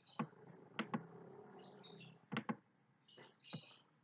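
Sharp clicks of a computer keyboard key and mouse button, a few times and mostly in quick pairs, as Alt is held and the mouse clicked. Faint bird chirps sound in the background between them.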